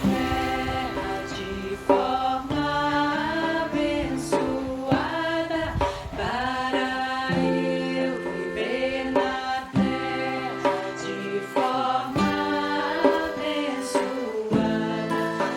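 Background music with a singing voice over held low notes, in a slow, chant-like style.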